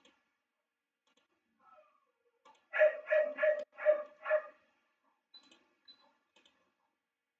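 A dog barking five times in quick succession, followed by a couple of faint clicks.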